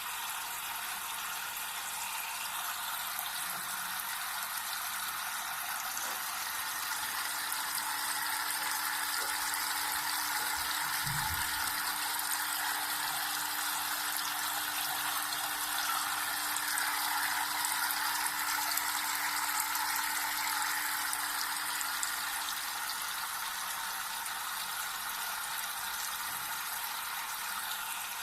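Small homemade waterfall fountain running, with water splashing steadily. A faint steady hum runs from early on until near the end, with a soft low thump about eleven seconds in.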